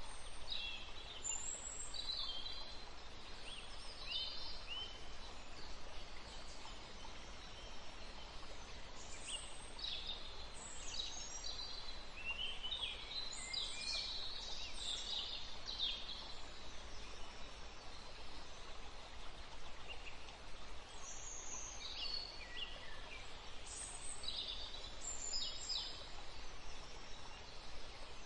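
Birds chirping in the background: many short, high calls come in scattered clusters, busiest in the middle and again near the end, over a steady low hiss.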